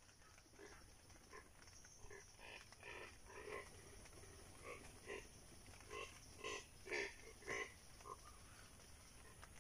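A run of short, repeated animal calls, about two a second, each a rich grunt-like note. They start about two seconds in and are loudest around seven seconds in.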